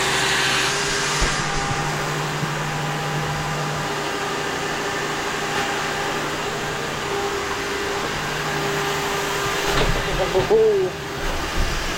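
A steady machine hum that holds a low and a middle tone, with a short wavering voice-like sound near the end.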